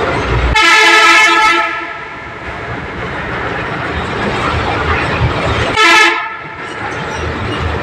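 Vehicle horn honking twice in a road tunnel: a blast of about a second, then a short toot about five seconds later, over the steady rumble of traffic.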